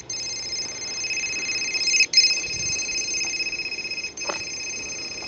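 Phone ringtone ringing: a steady, high-pitched repeating tone, breaking briefly about every two seconds.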